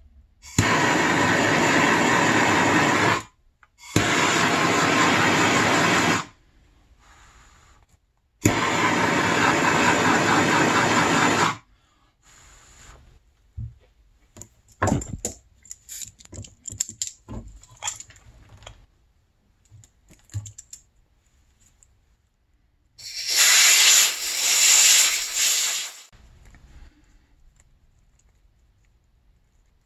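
Electric heat gun blowing hot air in bursts of about three seconds, switched on and off abruptly, to shrink heat-shrink tubing over a wire splice. It blows three times in the first dozen seconds and once more after about 23 seconds, with small clicks and rattles of handled parts in between.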